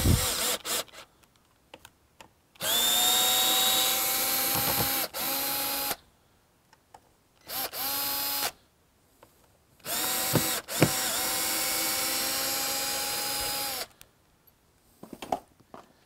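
Milwaukee M12 cordless screwdriver driving screws into a door strike plate in a hardwood frame, its motor starting and running steadily in three runs of one to four seconds with short pauses between, with a few small clicks near the end.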